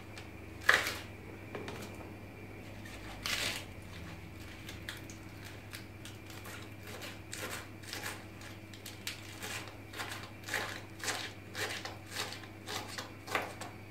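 Kitchen knife chopping lettuce on a plastic cutting board: a run of short crisp cuts, settling into about three strokes a second in the second half. Two louder handling noises come in the first few seconds.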